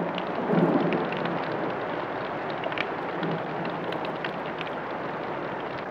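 Steady rain falling on clay roof tiles, with scattered drips and ticks of water off the tiles. A low rumble of thunder fades out in the first second.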